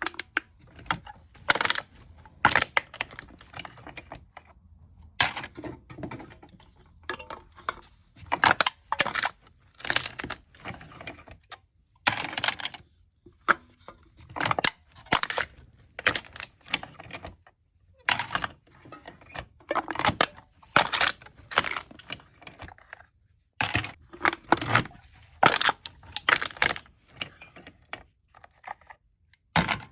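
Aluminium cans being crushed: bursts of crisp crinkling and crackling metal, in clusters of sharp crunches with short pauses between.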